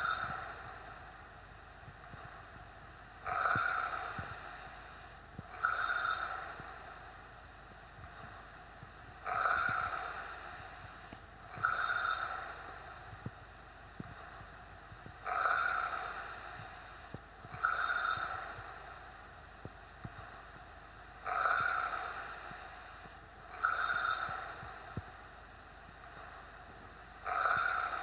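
A man snoring loudly in a slow, regular rhythm, about one breath every six seconds. Each breath brings two noisy snores about two seconds apart.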